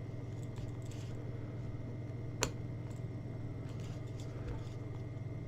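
Faint scrapes and small clicks of hands and a tool working at a P5 headphone earcup to get at its screws, with one sharp click a little under halfway through, over a steady low hum.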